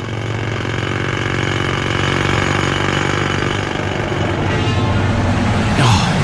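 Steady machine noise with a low, even engine hum, like heavy construction machinery at work; a short falling whoosh comes near the end.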